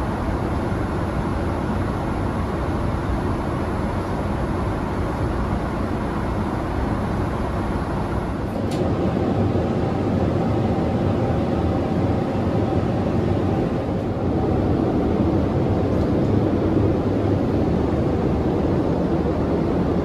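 Steady cabin noise of a Boeing 787-8 at cruise: an even rush of airflow and engine noise. A little before halfway it steps up slightly and a faint steady hum joins it.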